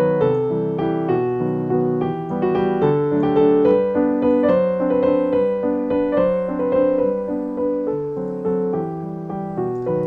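Background piano music: a melody over lower held notes.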